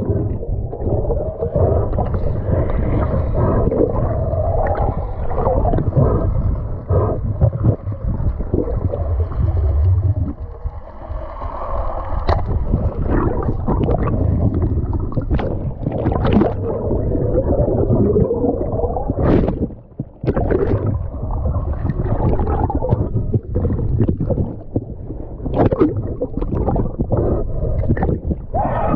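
Muffled underwater water noise, gurgling and bubbling, with scattered knocks and thuds as a diver struggles with a speared tuna.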